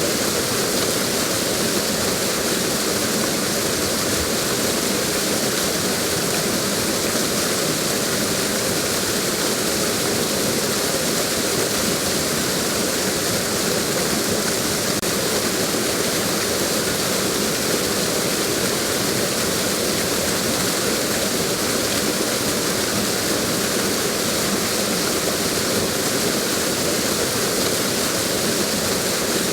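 Waterfall: water falling and splashing in a steady, unbroken rush with a strong hiss.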